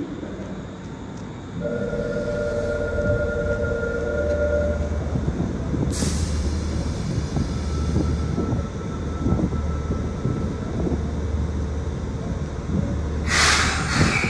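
Subway train pulling slowly into the platform with a steady low rumble. A horn sounds as one steady tone for about three seconds near the start, there is a brief hiss about six seconds in, and a loud hiss of air near the end as the train comes to a stop.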